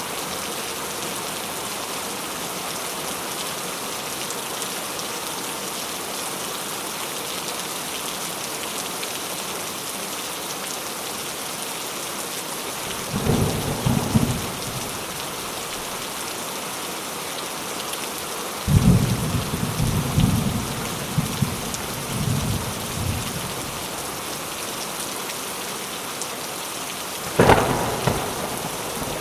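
Steady heavy rain with thunder: a short rumble about 13 seconds in, a longer rolling rumble from about 19 seconds, and a sharp thunderclap near the end.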